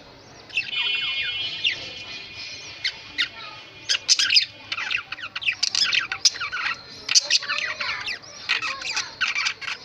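Budgerigars chirping and chattering: many quick high chirps and squawks, with a held buzzing trill for a couple of seconds about a second in.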